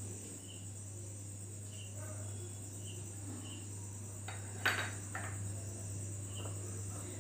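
Fingers mixing oil into dry flour in a bowl, a faint rubbing with a few light knocks against the bowl a little past halfway. Under it a steady high-pitched whine and a low hum.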